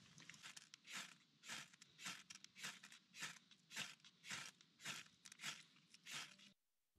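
Ferrocerium fire-starter rod scraped with a knife blade to throw sparks onto kindling: a faint run of about ten short, even strikes a little over half a second apart, stopping just before the end.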